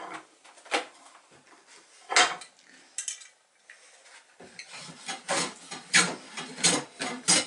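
Small hand plane shaving the curved edge of a wooden hull slice: a few separate strokes, then from about halfway a quicker run of strokes, roughly two a second.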